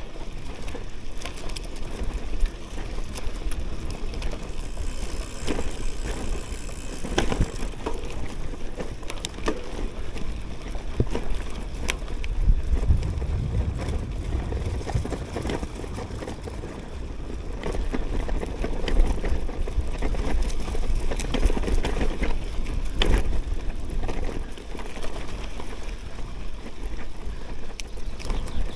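CUBE Cross Race Pro 2022 gravel bike rolling over a sandy dirt forest track: steady tyre noise with scattered clicks and rattles from bumps, and a low wind rumble on the action camera's microphone.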